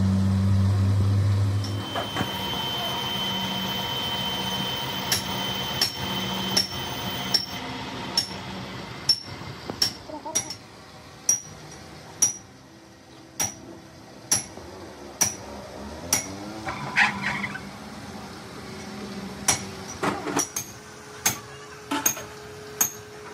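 Lathe motor running with a steady hum that stops about two seconds in. After it, light metallic clicks come about once a second while the V8 self-starter armature is turned in its end housing's bush bearing.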